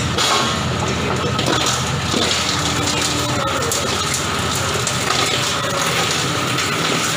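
Coconut shell and husk grinder running and crushing shell and husk, a steady, dense grinding noise over the hum of the machine.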